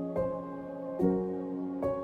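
Background music: a slow, gentle new-age piece of sustained chords, with a new chord struck three times, about once a second.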